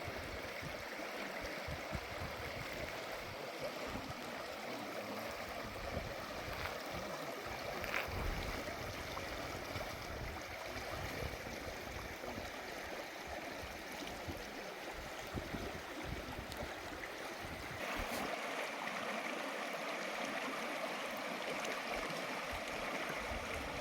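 Hoh River rushing steadily over its rocky bed, a constant even roar of flowing water.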